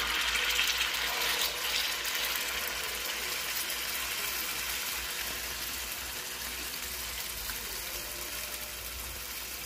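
Hot water cornbread batter sizzling as it fries in shallow hot oil in a skillet: a steady frying hiss, loudest in the first couple of seconds after the batter goes in, then slowly softening.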